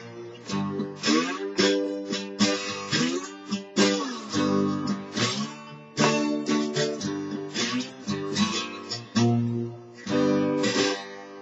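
Steel-string acoustic guitar played with a slide: strummed chords, the pitch gliding up and down between them. Near the end the last chord is left ringing and fades.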